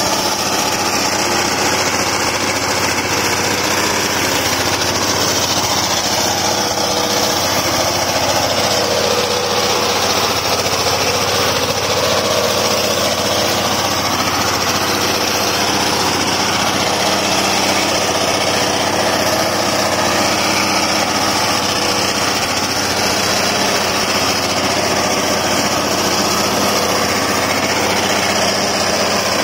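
Small engine of a walk-behind maize harvester running steadily under load while the machine cuts and feeds standing maize stalks.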